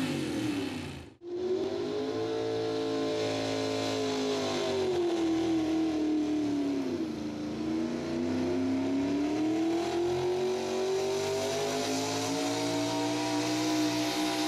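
Pulling pickup truck's engine at full throttle dragging a weight-transfer sled; its revs sag through the middle, then climb again toward the end. The sound cuts out briefly about a second in.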